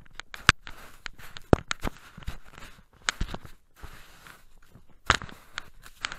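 Irregular crunching and knocking of a dog's paws treading and digging in snow right against the camera, with short scraping, crackly noise between the knocks.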